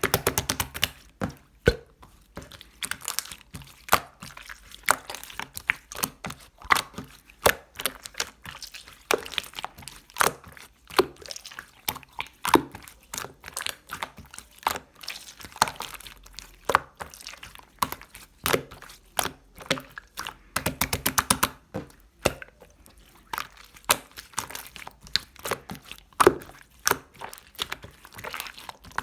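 Hands squishing, poking and stretching slime, giving an irregular run of wet pops and clicks.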